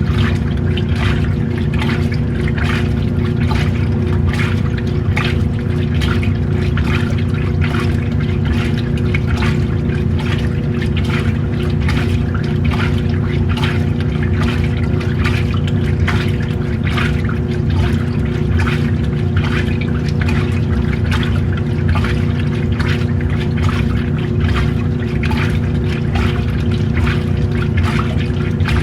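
Washing machine running with its load in water: a steady motor hum under continuous irregular sloshing and splashing.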